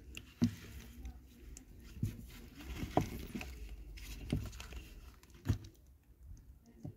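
Handling noises: about six irregular light taps or knocks a second or so apart, with some rustling.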